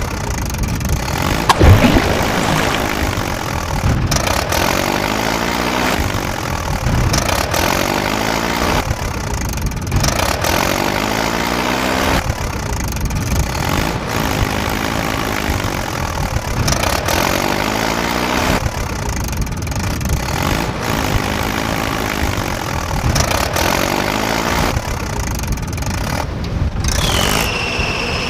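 Heavy diesel engine sound effect laid over the toy scene, rising and falling in pitch in a loop that repeats about every two seconds. Near the end a high tone slides down and holds steady.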